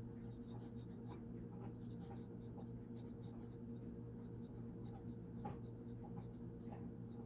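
Glass dip pen nib scratching across paper while writing cursive letters, a string of faint, irregular scratches and light taps as each stroke is made.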